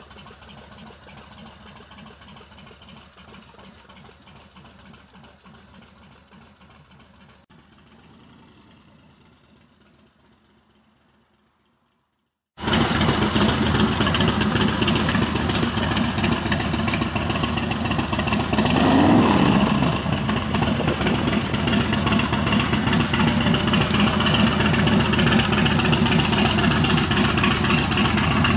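Motorcycle engine idling, loud and steady, cutting in suddenly about halfway through, with one short rise in pitch a few seconds later. Before it, a fainter rumble fades out to silence.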